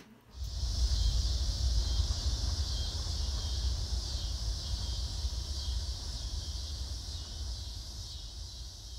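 Outdoor ambience: a low rumble of wind on the microphone under a steady high-pitched drone. It begins suddenly just after the start and slowly fades out near the end.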